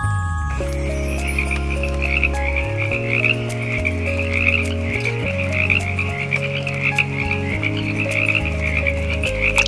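A chorus of frogs croaking in a dense, continuous trill. Under it runs background music with low sustained notes that change every second or two.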